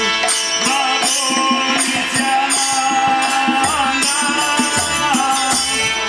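Music with percussion, shakers or tambourine-like rattles keeping a steady beat under pitched melodic lines.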